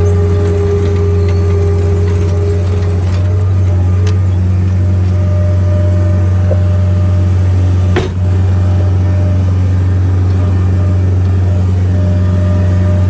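Caterpillar 247 skid steer's diesel engine running at a steady speed. A fainter whine changes pitch about three seconds in, and there is a single sharp click about eight seconds in.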